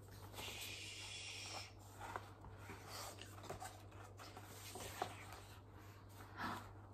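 Quiet handling of a large hardback picture book: paper rubbing and rustling with soft taps as a page is turned over, after a soft hiss in the first second or so. A faint low hum sits underneath.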